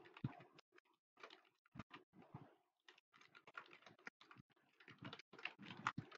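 Computer keyboard being typed on fast: a faint, quick, irregular run of key clicks with short gaps between words.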